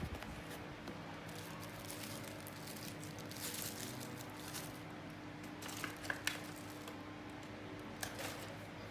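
Packaging being handled while a toy is unboxed: soft rustling and crinkling, with a few sharp clicks a little past the middle and again near the end, over a faint steady hum.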